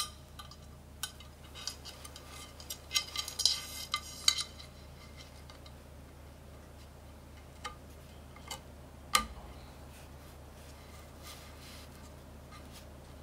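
Metal clinks and taps from a mechanical keyboard's aluminum switch plate, loaded with switches, being handled and set down into its metal case. Scattered sharp clicks come with a flurry about three to four and a half seconds in and a single louder knock about nine seconds in.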